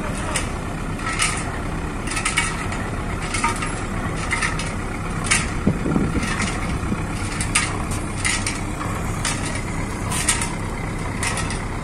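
A fishing boat's engine running steadily at low revs while the boat is moored, with irregular sharp clicks and knocks over it.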